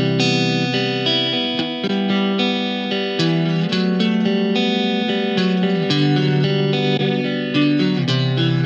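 Electric guitar played through a VOX Mini3 G2 modelling amplifier with a modulation effect switched on: chords struck and let ring, changing about once a second, with a rapid wavering in the sustained notes.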